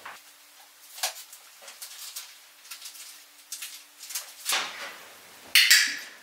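Soft rustling of magazine pages and handling noises, then near the end two loud, sharp clicks close together: a dog-training clicker pressed and released to mark that the dog has stayed in its bed.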